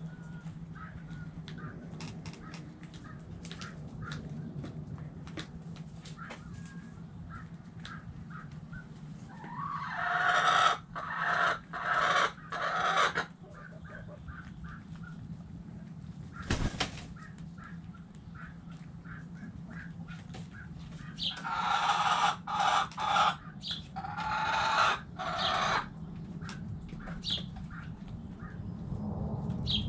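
Chickens in a coop giving two loud bouts of short, broken squawking calls, about a third of the way in and again past two thirds. Between them come scattered light clicks over a steady low hum, and a single sharp knock near the middle.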